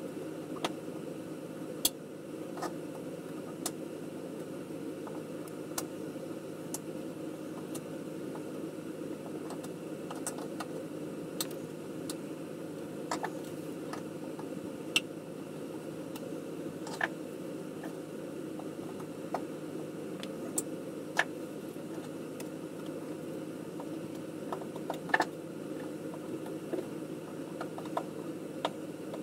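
Small plastic model-kit parts clicking and tapping irregularly, every second or two, as they are handled and pressed together by hand, over a steady low hum.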